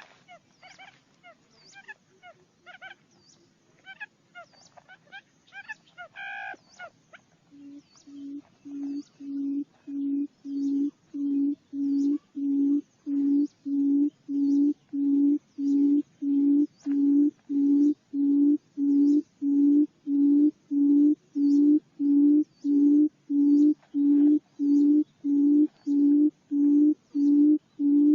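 Barred buttonquail giving its advertising call: a long, even series of low hoots, about two a second, that builds in loudness and then holds steady. Before the hoots start there are faint high chirps, with one brief higher call just before.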